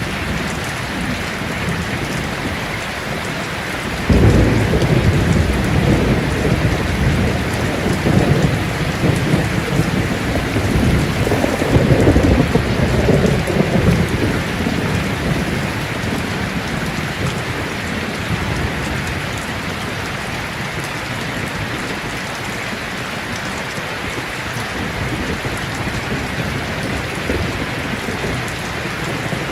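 Steady heavy rain, with a rolling thunder rumble that breaks in suddenly about four seconds in, swells a couple of times and fades away over roughly ten seconds.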